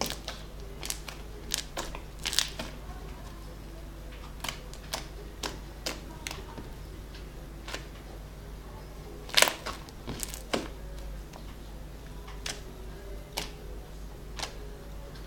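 Homemade slime being squeezed and pressed in the hands, making irregular sticky clicks and pops, the loudest about nine and a half seconds in.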